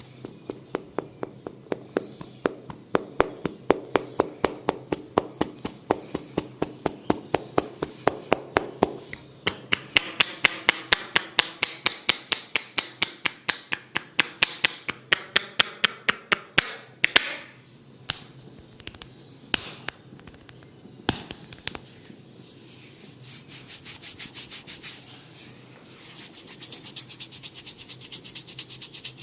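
Hands rapidly tapping on a head during a barber's head massage, about four sharp taps a second, with a brushing hiss between them. The taps thin out to a few single ones, then give way to hands rubbing and scratching through the hair near the end.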